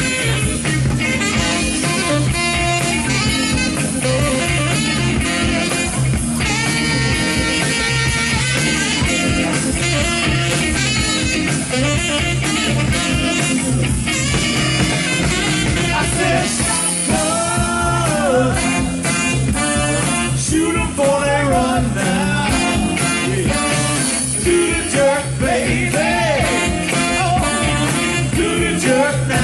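Live soul band playing a driving groove with guitar, bass and drums, a saxophone wailing out bending lead lines over it.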